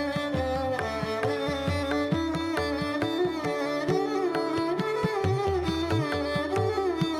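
Background instrumental music: a plucked string melody with sliding notes over a steady drum beat, in an Indian classical style.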